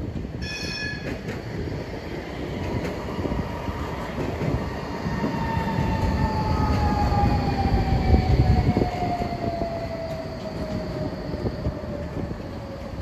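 Metro do Porto light-rail train running past on its tracks: a low rumble that swells to its loudest midway, with the traction motor's whine sliding slowly and steadily down in pitch as the train slows. A short high-pitched signal sounds about half a second in.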